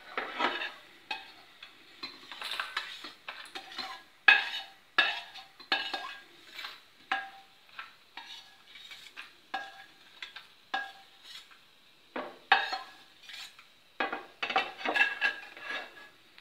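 Steel ladle scraping and knocking against a stainless steel kadai as dry-roasted coriander seeds and red chillies are emptied out into a small steel bowl: a run of sharp metallic clinks and scrapes in clusters, with short pauses between.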